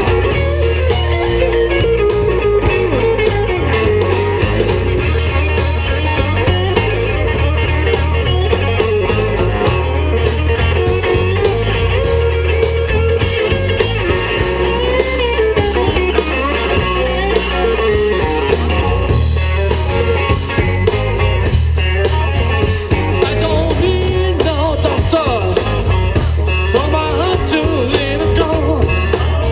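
Live rock-and-roll band playing loudly: an electric guitar line over bass and a steady drum beat.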